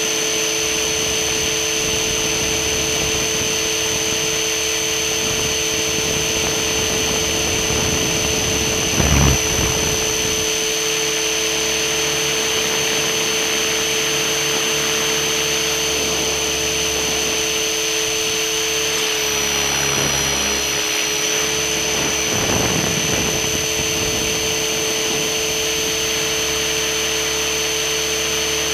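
Radio-controlled model helicopter's motor and rotors running with a steady whine. The pitch dips briefly about two-thirds of the way through, and there is a short low thump about nine seconds in.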